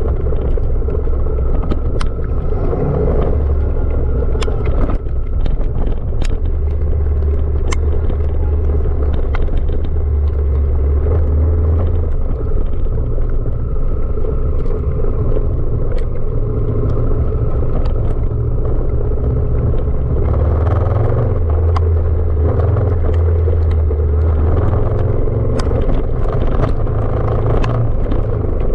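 Honda CRF1000 Africa Twin motorcycle riding a rough dirt track: its parallel-twin engine running with a deep, shifting rumble, mixed with wind on the microphone and scattered sharp clicks and knocks.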